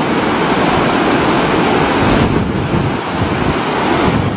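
Fast, muddy floodwater of a wadi in spate rushing and churning in a steady loud roar, with wind buffeting the microphone.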